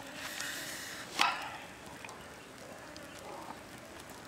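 Wood campfire burning with a low crackle, a brief hiss early, and one loud sharp crack about a second in.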